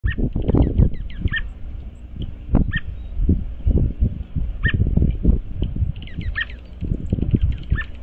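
Wild birds giving short, high, slightly falling chip calls, scattered irregularly, over louder irregular low rumbling and thumps.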